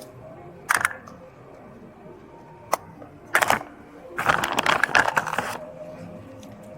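Handling noises: a few sharp clicks, then about a second and a half of crackling and rustling, like objects and clothing being handled close to the microphone.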